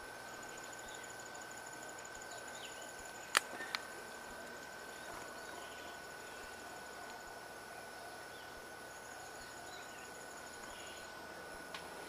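Faint insects trilling in a fast, even high pulse, over a steady high tone, with a sharp click about three and a half seconds in and a smaller one just after.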